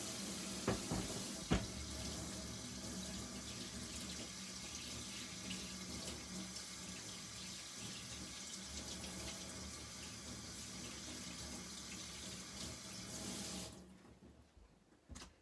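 Kitchen tap running steadily into a stainless steel sink, shut off suddenly about fourteen seconds in. Two sharp knocks near the start as the plastic cutting board is set down on the steel drainboard.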